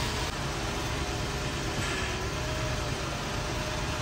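Lexus LX470's V8 engine idling steadily.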